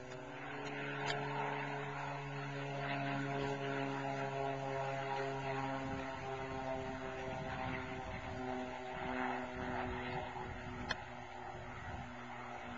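Cessna AgTruck crop-duster's six-cylinder piston engine and propeller droning steadily on a low spraying pass. It grows louder over the first few seconds as the plane comes by, then eases off toward the end as it moves away.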